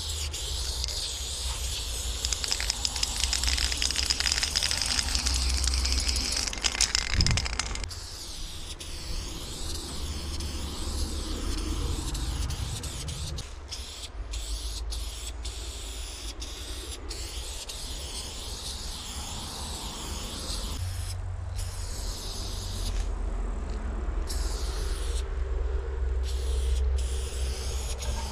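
Aerosol spray-paint can hissing in long bursts as lines are sprayed onto a brick wall; the hiss is loudest in the first third, then softer, with a few short breaks near the end. A steady low rumble runs underneath.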